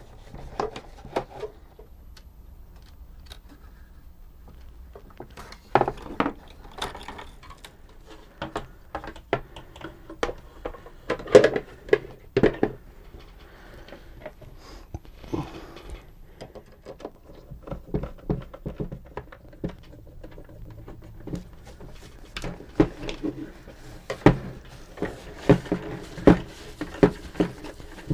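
Hands working on the plastic parts of an Omnibot 2000 robot's tray mechanism: irregular clicks, taps and light knocks of small plastic pieces and tools being handled and fitted together.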